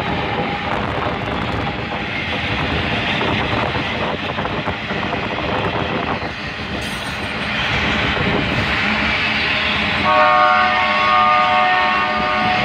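Union Pacific freight train rolling past close by: a steady rumble with clattering wheels on the rail joints as the boxcars and autoracks go by. About ten seconds in, a steady chord of several tones sets in and holds: the lead locomotive's horn sounding farther down the line.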